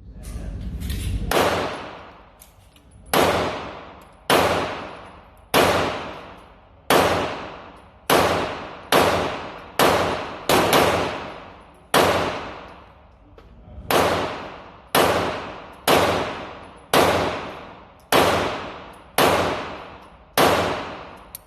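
Girsan MC Regard 9mm pistol, a Beretta 92 clone, fired shot after shot through a 17-round magazine: about seventeen shots at roughly one a second, some in quicker pairs. Each shot trails off in a long echo.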